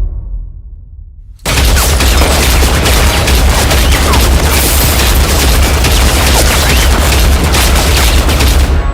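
A deep boom dying away, then about a second and a half in, a long, dense burst of heavy automatic gunfire with a deep rumbling low end, which cuts off abruptly near the end.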